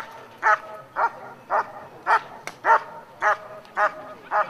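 A black dog barking steadily and rhythmically, about two barks a second, at a motionless decoy holding a bite sleeve, as in the hold-and-bark phase of protection work.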